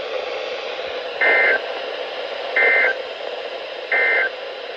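Emergency Alert System end-of-message code on NOAA Weather Radio: three short, shrill two-tone digital data bursts about 1.4 seconds apart, over steady radio hiss. It signals the end of the alert broadcast.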